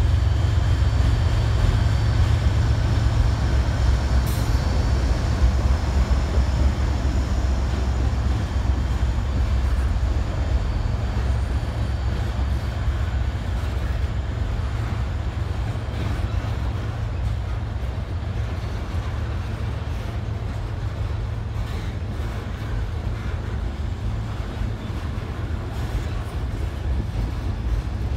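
Freight train crossing a steel girder bridge: the diesel locomotives' deep rumble as they pass, then the steady rumble and clatter of freight cars rolling over the bridge. The sound eases slowly as the locomotives move away, and a faint high whine fades out about halfway through.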